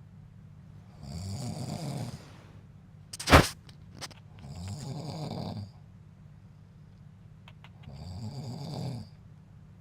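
A man snoring in his sleep: three snores, each about a second long, coming about every three and a half seconds. A sharp click between the first and second snores is the loudest sound, followed by a few faint ticks.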